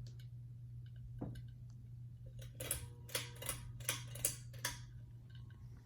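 A Harbor Breeze Sandoval ceiling fan running with a steady low hum. About halfway through, a quick run of sharp clicks and clacks, about eight in two seconds, comes from the loose, wobbling fan rattling.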